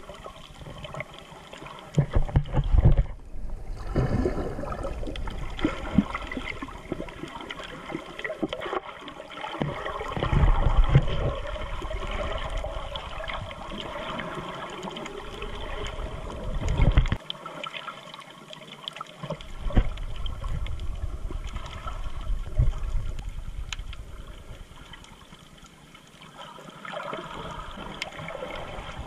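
Water heard through a GoPro's waterproof housing underwater: muffled sloshing and gurgling, with irregular low surges every few seconds as the camera moves through the water.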